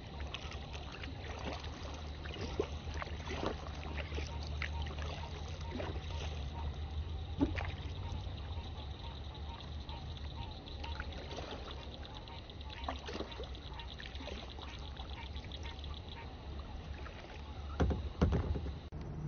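Water trickling and dripping off a kayak paddle, with many small splashes, as the kayak moves across a pond. A louder splash or knock comes near the end, over a steady low hum.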